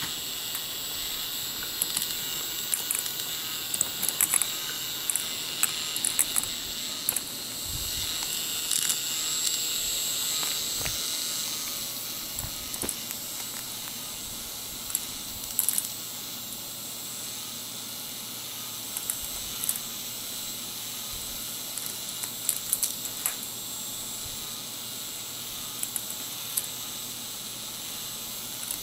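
A K'NEX ball machine running: a steady high motor whine under irregular clicks and clatters of plastic balls knocking along the track and through the mechanism.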